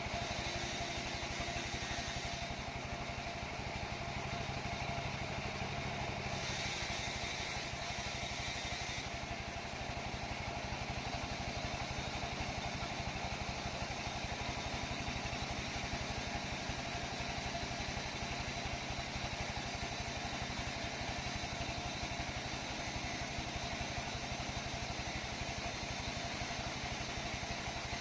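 Sawmill machinery running steadily with an engine-like drone and a fast, even pulse and some clatter, without pause or change in speed.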